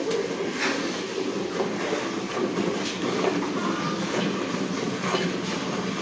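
Cow being milked by hand: milk squirting into a metal pail in a rhythmic run of strokes about once or twice a second, over a steady rushing noise.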